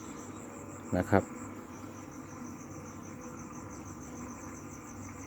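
Crickets chirping at night in a steady, fast pulsing trill, over the low steady hum of a fish-pond aerator air pump.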